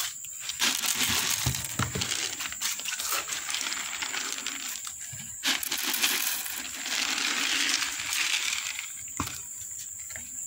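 Dry cat kibble rattling inside a clear plastic jar and pouring out onto a wooden board, in two long spells.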